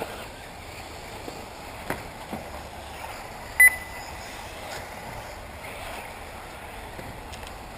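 One short, high electronic beep about three and a half seconds in, the loudest sound, such as a race lap-timing system gives as a car crosses the line. Under it a steady open-air hiss from the track with a few faint ticks.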